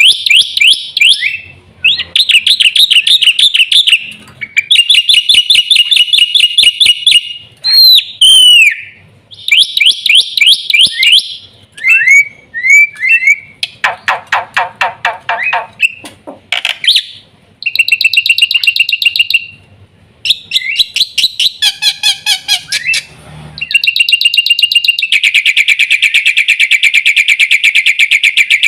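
Jalak putih (black-winged myna) singing loudly: repeated phrases of fast chattering notes with short pauses, a few sliding whistles, then a long unbroken rapid rattle near the end.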